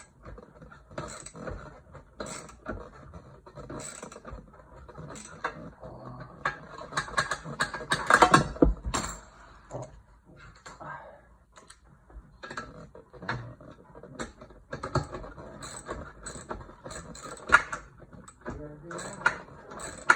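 Irregular metallic clicks, knocks and clatter of hand tools and metal parts being handled during assembly, with a louder burst of rattling about eight seconds in.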